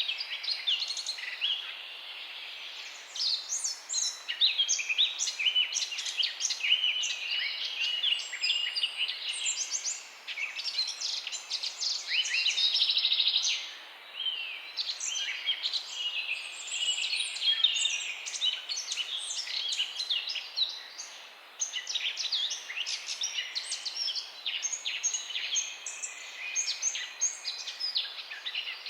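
Many small birds chirping and twittering together in a dense chorus of short, overlapping high calls. A buzzing trill stands out about twelve seconds in and lasts over a second.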